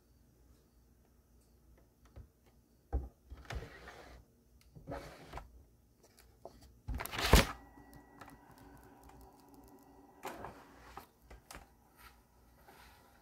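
Sporadic clicks, knocks and short rustling noises of things being handled in a small room, with one louder burst about seven seconds in.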